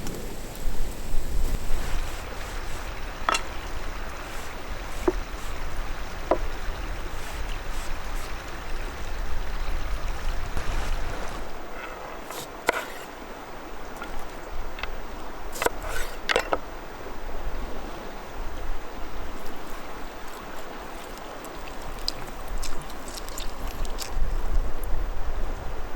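Bread frying over a wood fire: a steady sizzle with sharp crackling pops now and then, and wind rumbling on the microphone.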